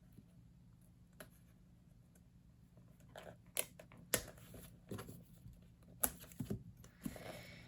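Paper of an old book's pages rustling and tearing as a plate is worked loose from the binding: faint at first, then several sharp crackles of paper from about three seconds in.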